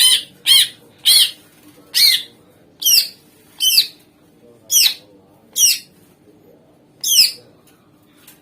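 Green leafbird (cucak ijo) calling loudly: a series of about ten short, sharp notes that bend in pitch, each well under a second apart, stopping about seven seconds in.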